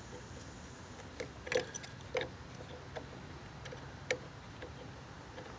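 Scattered light metallic clicks and ticks of an adjustable wrench on the nut of a battery terminal clamp as it is tightened, with a few sharper clicks in the middle.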